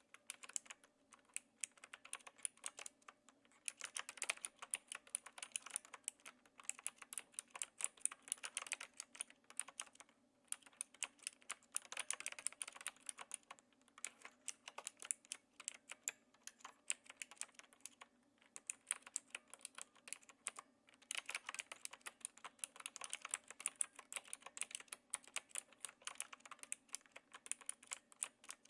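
Typing with a light touch on a Knewkey Rymek typewriter-style mechanical keyboard with clicky blue switches. Runs of fast keystrokes click steadily, broken by short pauses every few seconds.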